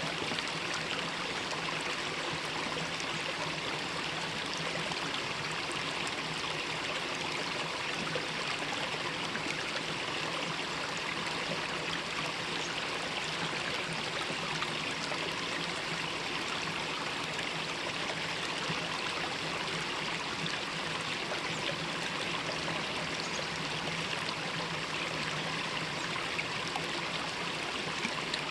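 Mountain stream water running steadily over rocks, an even rushing babble with no breaks.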